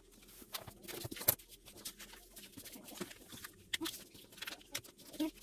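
Sheet of paper rustling and being creased while a paper airplane is folded: irregular crisp crinkles and small taps.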